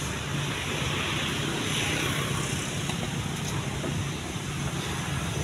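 Steady outdoor background noise: a constant low rumble with a broad hiss over it, unchanging throughout.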